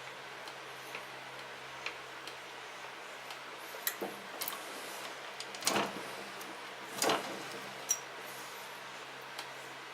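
Scattered clicks and knocks of hand tools and metal parts being handled during reassembly of a snow thrower transmission, with two louder clunks in the middle, over a steady low hum.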